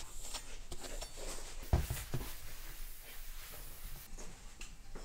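Paper towel rubbing and wiping, first along a knife blade and then across a wooden chopping board, with a low thump a little under two seconds in.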